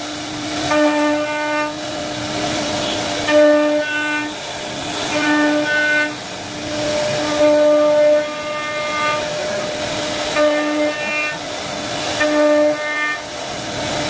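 CNC wood router carving a wooden panel: a machine whine held at one steady pitch that starts and stops in stretches of about a second, over a constant hiss of the cut.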